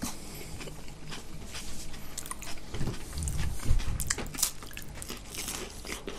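Close-up biting and chewing of pide kebab with crisp bread, a string of short crunches, with a deeper muffled stretch about halfway through.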